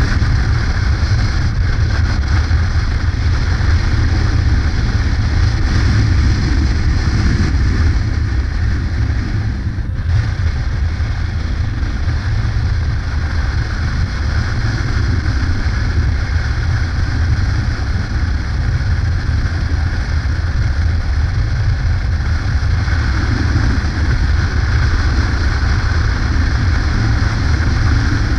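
Yamaha Ténéré motorcycle cruising along a road, its engine running steadily under a heavy low rush of wind on the microphone. The sound dips briefly about ten seconds in.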